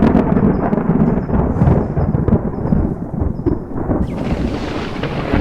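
Thunder rumbling continuously, a deep rolling sound effect.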